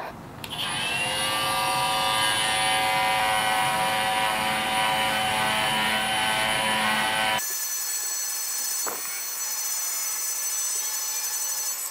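Cordless power sander running steadily with a high whine as it sands down old painted slats. About seven seconds in, its sound abruptly changes and turns thinner.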